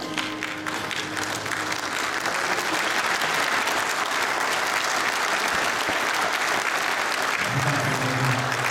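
Audience applauding, growing louder over the first two seconds and then holding steady.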